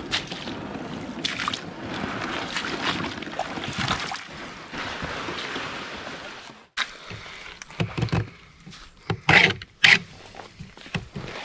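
Footsteps sloshing and splashing through wet slush and shallow meltwater, in a steady run of strides. Then the walking stops and there are scattered handling knocks and clicks, two of them sharp and loud, as a hand works a plastic vacuum sensor fitting on maple sap tubing.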